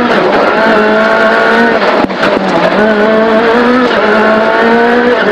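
Ford Fiesta WRC's turbocharged four-cylinder rally engine at full throttle, heard from inside the cabin, its pitch rising slowly as it pulls along a straight, with a quick upshift about two seconds in.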